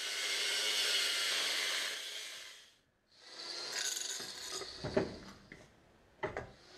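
Angle grinder cutting a tough steel seat rail, a steady grinding hiss that fades out about three seconds in. After that come rougher scraping and two sharp metal knocks near the end as the parts are worked at the engine mount.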